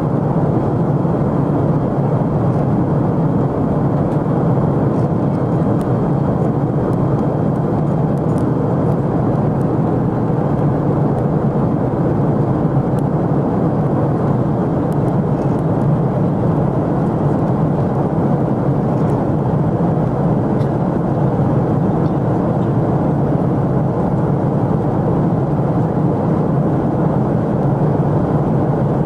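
Steady in-flight cabin noise of a Boeing 747SP, a dense, even rush of engine and airflow noise heard from inside the passenger cabin, unchanging throughout.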